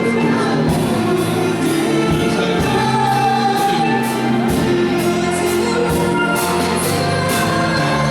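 Gospel song sung by several voices with band accompaniment and a steady beat.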